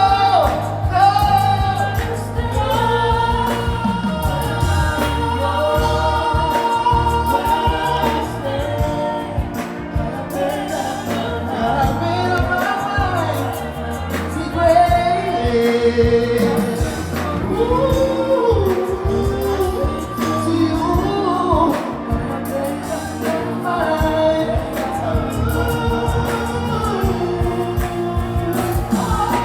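Loud party music: a song with sung vocals over a steady bass beat.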